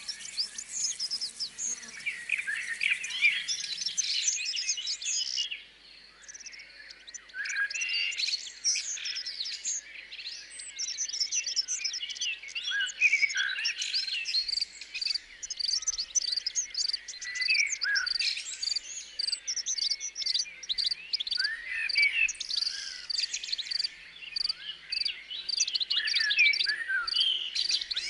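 Many birds singing and calling over one another, with insects chirping steadily behind them, as in a nature-sound recording. The loudness dips briefly about five or six seconds in.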